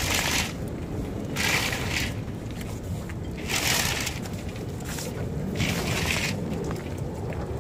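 A J/24's sail flapping and crackling in the wind in short bursts about every two seconds as it goes up the mast, over a steady rumble of wind on the microphone.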